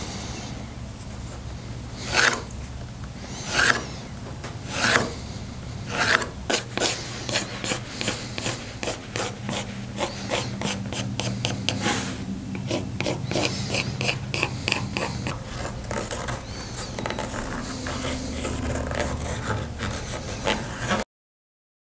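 Pencil scratching on a walnut board. A few separate long strokes come about a second apart, then a quick run of short back-and-forth strokes, growing softer toward the end, before the sound cuts off suddenly.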